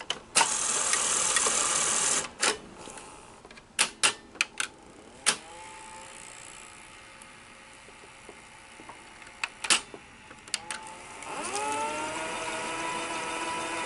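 Sony SL-100 Betamax deck's tape transport: a brief rushing noise, then mechanical clicks and clunks as the cassette is loaded and the controls are worked, and about eleven seconds in a motor spins up with a rising whine that settles into a steady hum. The deck is trying to rewind on a unit that plays but won't rewind.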